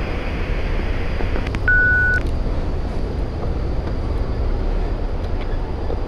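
A single electronic beep, one steady high tone about half a second long, about two seconds in, over a steady low rumble.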